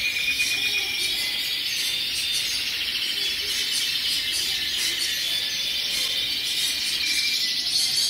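Many domestic canaries singing together: a dense, steady chorus of high, rapid trills.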